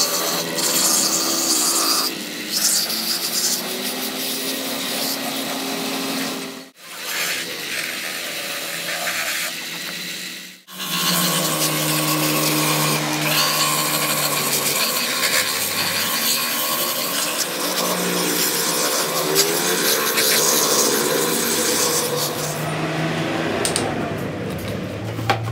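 Straight grinder with a rotary buffing wheel abrading the surface of a rubber tyre-repair patch: a steady rasping scrape over the tool's running hum. This roughens the rubber so the patch will bond. Two brief dropouts break the sound, and it stops a few seconds before the end.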